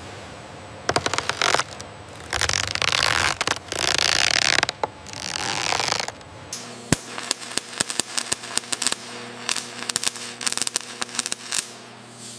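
Wooden spatulas scraping over wet resin on a fibreglass mould in several rasping strokes. About six and a half seconds in, this gives way to dense, irregular crackling and popping from a welding torch's sparks on a metal cockpit frame.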